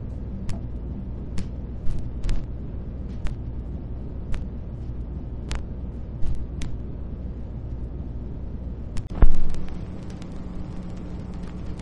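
Street sound picked up by a handheld camera while walking: a steady low rumble with sharp clicks every second or so. One loud thump comes about nine seconds in, followed by a steady low hum.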